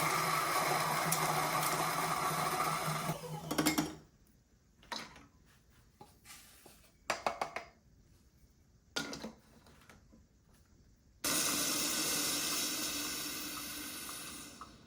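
A small electric kitchen appliance motor, such as a blender or grinder, runs steadily for about four seconds and stops, followed by a few light knocks and clatters. About eleven seconds in, a steady rushing noise starts suddenly and fades away gradually.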